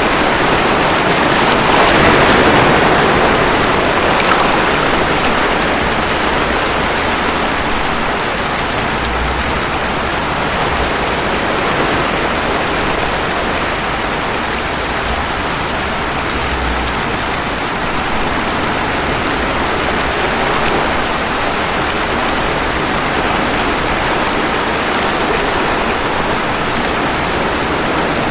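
Steady rain falling, mixed with ocean waves washing ashore, a wave swelling loudest about two seconds in.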